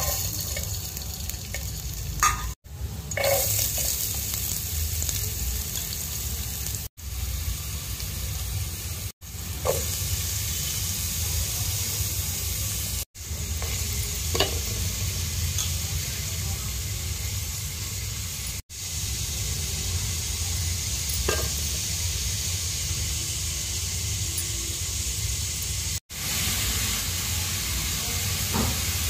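Chopped garlic and then chopped vegetables sizzling in hot oil in an aluminium pot, with a steady hiss and the occasional knock and scrape of a spatula stirring against the metal. The sound cuts out briefly about six times.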